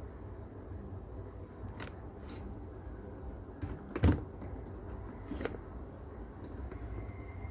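A few faint short clicks and one louder knock about four seconds in, over a low steady hum.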